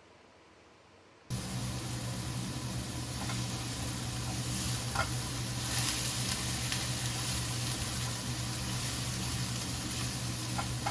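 Food sizzling in a frying pan, starting suddenly about a second in, over a steady low hum.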